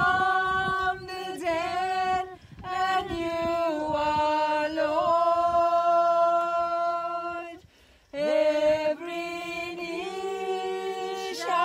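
A group of voices singing a slow hymn unaccompanied, in long-held notes. There is a brief break about two and a half seconds in, and a pause for breath about eight seconds in before the singing picks up again.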